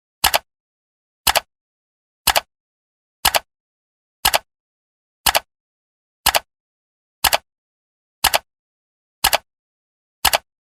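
Clock ticking sound effect marking each second of a countdown timer: a sharp tick once a second, each tick a quick double click, with dead silence between.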